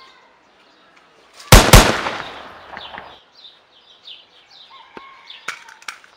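Two gunshots in quick succession, about a quarter second apart, with a long echoing tail: a dubbed gunshot sound effect for the toy-gun shootout. Birds chirp afterwards.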